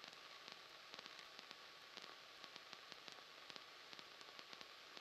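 Near silence: faint hiss from the cockpit intercom audio feed, with scattered tiny crackles and a faint steady tone.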